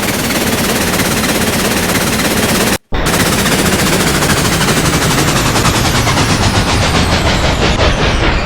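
Loud, continuous rattling clatter of a train, cutting out for an instant about three seconds in; its high hiss fades away toward the end.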